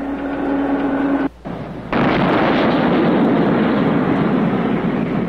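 M48A3 tank heard as a loud, steady engine-and-track noise that cuts in abruptly about two seconds in and holds level. Before it comes a quieter steady noise with a low hum.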